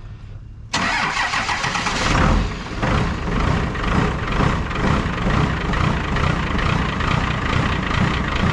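1998 Dodge Ram 3500's 12-valve Cummins inline-six turbodiesel starting on freshly replaced batteries: it cranks briefly, fires and revs up about two seconds in, then settles into a steady idle.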